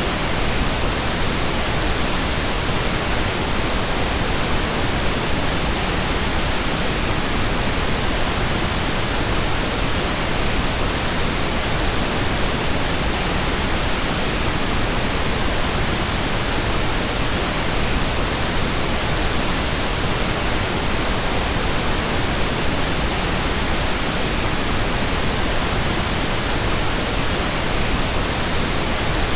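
Steady pink noise: an even, unchanging hiss spread across the whole range of pitch, with no breaks or changes.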